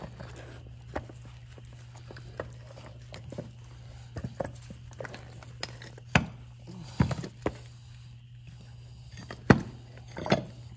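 Metal gear housing of a Graco 7900 airless paint sprayer being handled and worked loose, giving scattered metal knocks and clunks, the loudest in the second half, over a steady low hum.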